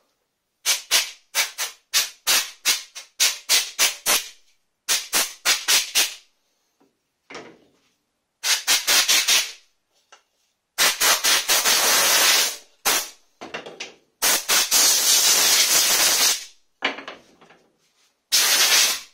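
Compressed-air blow gun blowing off wooden workpieces. About the first six seconds bring a fast run of short hissing puffs, roughly three a second; after that come several longer blasts of one to two seconds each.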